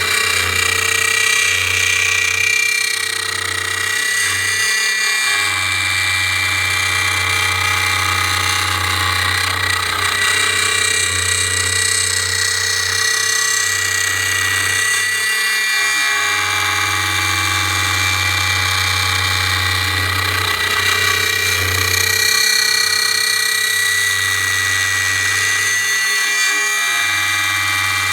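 CNC router spindle running with a steady high whine as a 1/4-inch bit cuts clear heart redwood. A lower hum drops out and returns several times.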